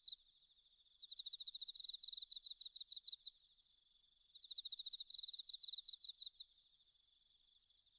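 Faint insect chirping, like crickets: trains of rapid high chirps in bursts of a second or two, with a quieter steady high tone under them.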